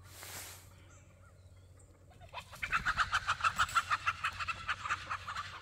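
Chickens cackling in a fast run of repeated sharp notes, starting about two seconds in, while they are being herded. A brief soft rustle comes right at the start.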